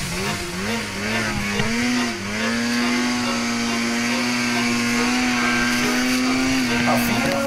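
Snowmobile engine revving up unevenly over the first couple of seconds, then held at steady high revs as the sled ploughs through deep snow.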